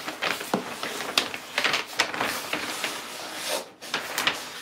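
A snowboard in a paper sleeve being slid up out of a cardboard shipping box: paper and cardboard scraping and crinkling, with frequent sharp crackles.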